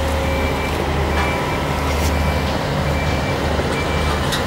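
Heavy crane diesel engine running steadily under load, with a high-pitched warning alarm beeping about once a second.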